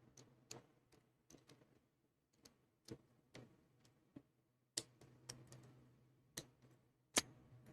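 Faint, irregular metallic clicks and taps of a pick and tension wrench working in a Master Lock No 3 laminated pin-tumbler padlock, with a few sharper clicks in the second half.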